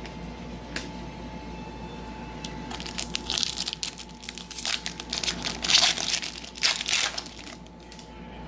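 Foil trading-card pack wrapper crinkling and crackling as it is torn open and handled. There is a dense run of sharp crackles from about three seconds in until near the end.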